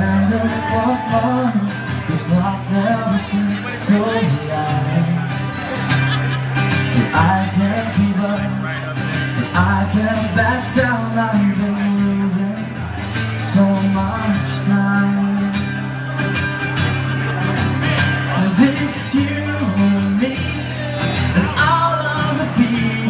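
A song playing: a voice singing over guitar.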